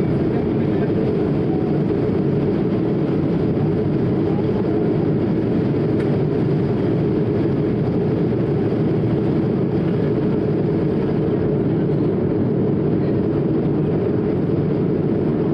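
Steady cabin noise of an Airbus A220-300 in flight, heard from a window seat by the wing: a constant low rumble from its Pratt & Whitney PW1500G geared turbofans and the airflow over the fuselage.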